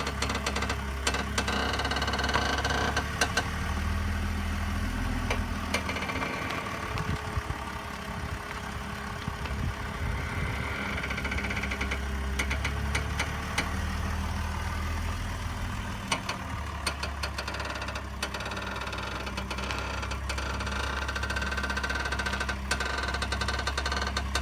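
A 2003 BMW Z4 3.0i (E85) running while its steering wheel is turned, giving an abnormal steering noise of unknown cause: scattered clicks and knocks, with higher tones coming and going, over the steady engine sound.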